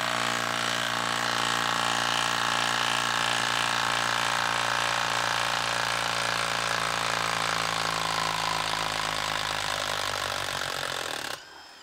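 Milwaukee M18 Fuel 2855-20 half-inch compact impact wrench hammering continuously on speed 3 as it backs a long lag bolt out of a wood log. It runs steadily and stops suddenly about eleven seconds in, as the bolt comes out.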